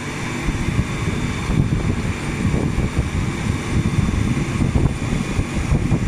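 Bitzer refrigeration condensing unit running after its refrigerant recharge, with the condenser fan's air gusting against the microphone as a low, uneven rumble.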